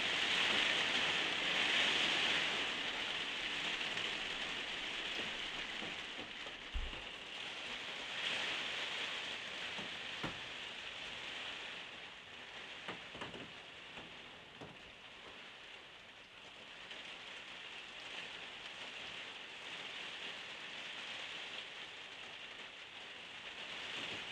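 Heavy rain falling steadily, loudest at first and growing quieter partway through, with a few faint ticks around the middle.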